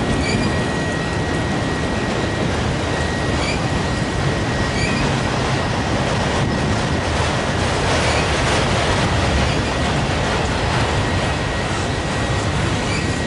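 Freight train of autorack cars rolling past close by: a steady rumble of steel wheels on rail, with a thin, steady high-pitched tone running over it and a few faint ticks.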